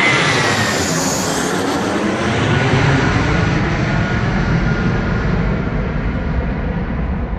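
Jet airliner's engines passing low overhead and climbing away after takeoff. A high whine slides down in pitch at the start, then a broad low rumble slowly fades as the aircraft recedes.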